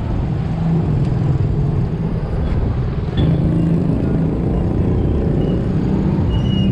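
Street traffic noise, with a motor vehicle engine running steadily close by.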